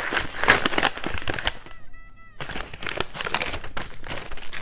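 Wrapping paper crinkling and tearing as a small gift-wrapped package is unwrapped by hand, with a short pause about two seconds in.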